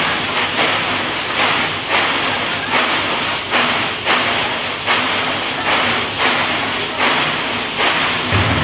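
An ensemble of large frame drums struck together in a steady rhythm, with an accented beat about every 0.7 seconds and lighter strokes between.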